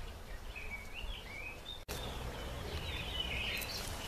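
Birds chirping in short, wavering high calls over a low rumble, with a brief dropout just under two seconds in.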